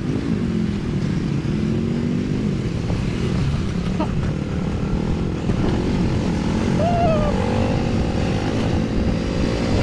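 Motorcycle engine running steadily while riding a dirt road, heard from on the bike, its pitch shifting gently with speed.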